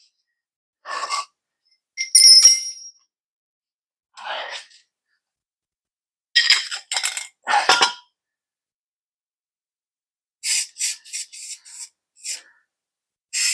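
Scattered workshop handling noises: a short metallic clink about two seconds in, a few soft breath-like sounds, and a quick run of short rubbing or scraping strokes near the end.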